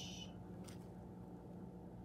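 Quiet room tone with a steady low hum, and one faint tick a little under a second in.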